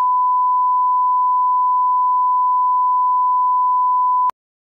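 Steady electronic test tone: a single pure beep held at one unchanging pitch, cutting off abruptly about four seconds in.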